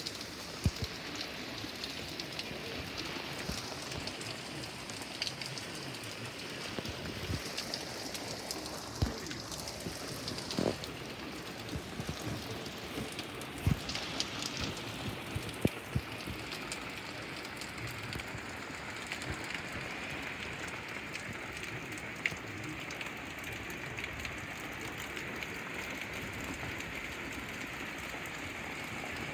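Heavy rain falling steadily, with occasional sharp taps of drops striking close by.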